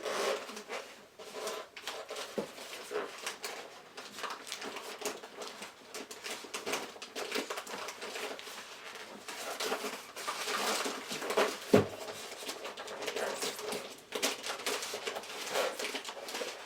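Power supply packaging being handled: irregular rustling, scraping and small clicks, with one sharp knock about twelve seconds in.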